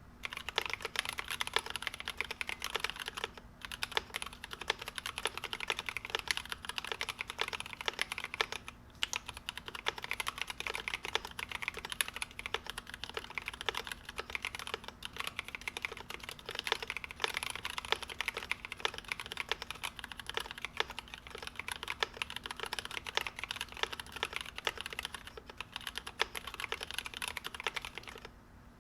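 Typing on a GMMK Pro mechanical keyboard fitted with stock NovelKeys Cream linear switches in an aluminum plate: a fast, steady stream of key clacks, pausing briefly a few times.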